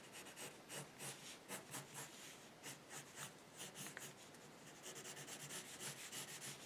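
Faint scratching of a black colored pencil drawing on paper, in a quick, irregular run of short strokes.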